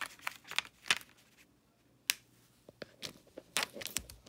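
Clear plastic carrier sheet of heat transfer vinyl crinkling and crackling as it is handled and folded in half. The sound comes as a string of sharp, irregular clicks, with a short lull about a second and a half in.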